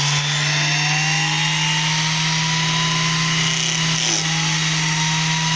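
Electric random orbital sander with 60-grit paper running steadily while sanding the mitred edge of wooden block-house siding: a steady motor hum with the noise of the abrasive on the wood.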